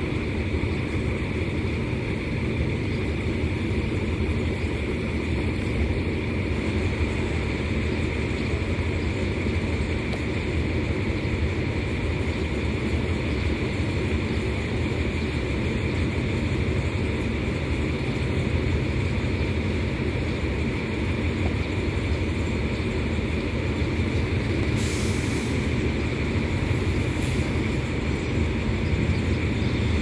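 Hitachi diesel-electric locomotive's engine running steadily as the train moves slowly along the platform. Two short hisses of air come near the end.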